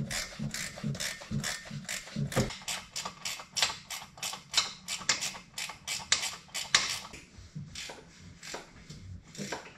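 Hand ratchet wrench clicking steadily, about four clicks a second, while a 15 mm nut is backed off an exhaust header stud. The clicks thin out and become irregular near the end.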